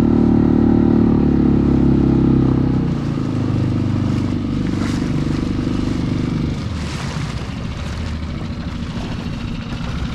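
Small boat motor running steadily. Its note shifts about three seconds in, and it gets quieter after about six and a half seconds.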